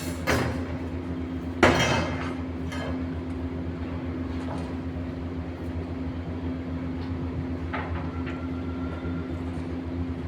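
A steady low machine hum with a few sharp knocks or clanks; the loudest is about two seconds in, and fainter ones follow later.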